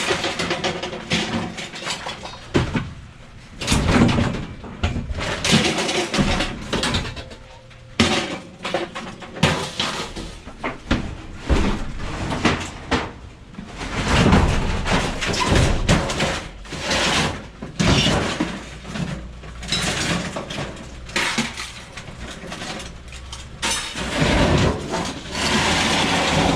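Scrap metal being thrown and dropped from a van onto a pile: a long run of irregular clanks and bangs, several a second at times.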